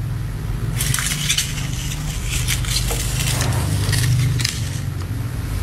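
Small plastic plant dolly on casters, pushed by a cat, rolling over a tiled floor: a steady low rumble from the wheels with a run of rattling clicks and knocks between about one and five seconds in.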